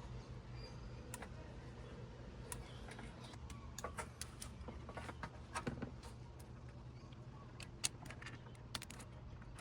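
Scattered light clicks and taps of hand tools and scooter parts being handled, a few sharper knocks among them, over a faint steady low hum.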